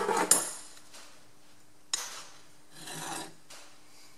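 A hand file scraping on the steel drill-chuck arbour held in the lathe chuck, in a file test of how hard the steel is. A stroke ends about half a second in, then comes a sharp tap about two seconds in and a softer scrape near three seconds.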